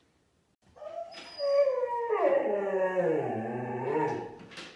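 Siberian husky giving one long, wavering howl that starts about a second in and slides steadily down in pitch before fading out near the end.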